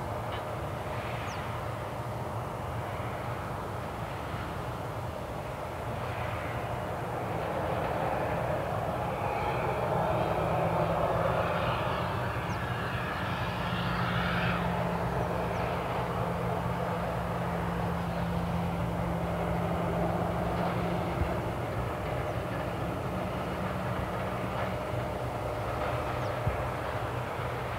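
Airport apron noise: a steady jet aircraft hum that grows louder for about fifteen seconds mid-way, with a low drone, then eases back.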